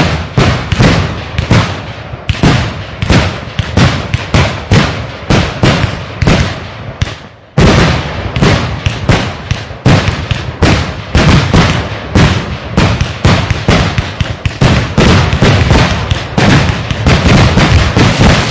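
Fireworks display firing a rapid string of shots and bursts, about three bangs a second. It starts abruptly and thickens into a denser, louder volley about halfway through.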